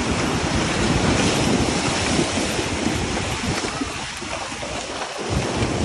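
Ocean surf washing and breaking around horses wading through the shallows, with water splashing about their legs and wind buffeting the microphone.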